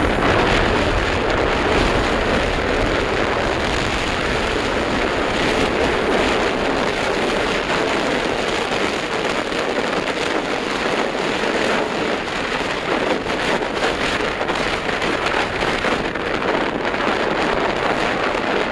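Steady rush of wind and choppy water splashing past a sailboat's hull as it sails, with wind buffeting the microphone, heaviest near the start.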